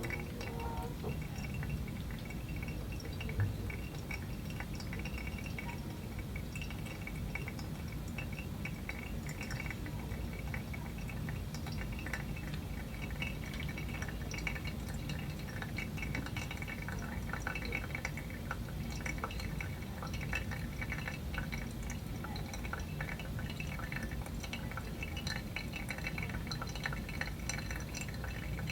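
Pour-over coffee brewing: water trickling through the grounds and dripping into a glass server, with many fine crackling ticks over a steady low wash of liquid.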